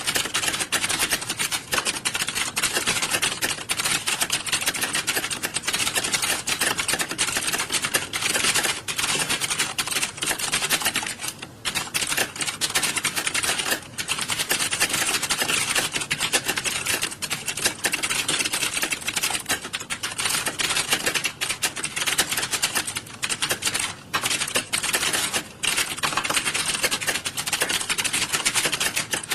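Many computer keyboards being typed on at once in an exam hall: a dense, continuous clatter of key clicks with brief lulls about a third and halfway through.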